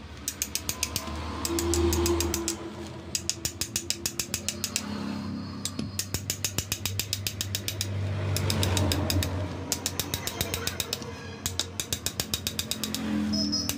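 A ratchet wrench clicking rapidly in short runs, about ten clicks a second, as bolts on a Piaggio Ape diesel's clutch assembly are turned. A low rumble swells and fades three times underneath.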